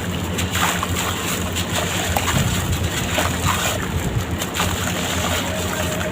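Sand-cement blocks crumbling in water: continuous wet splashing and sloshing, with many small crackles as pieces break away, over a steady low hum.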